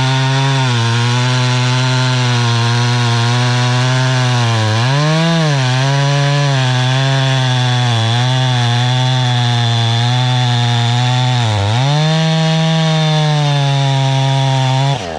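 Two-stroke chainsaw running at high speed while cutting wood with a dull chain. The engine note holds steady, bogs down and recovers twice, and cuts off abruptly near the end.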